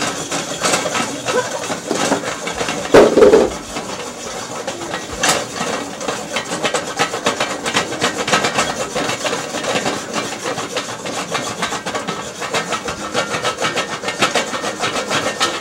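A lidded pot shaken back and forth on a stovetop burner, the metal scraping on the grate and the unpopped popcorn kernels rattling inside, in a fast, even rasping. It is loudest about three seconds in and stops suddenly at the end.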